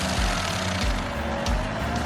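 Background music with a steady bass beat, over a dense noise of machinery running.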